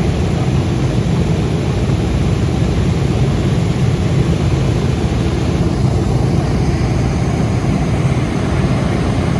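Loud, steady rumble of aircraft engines running at an airfield.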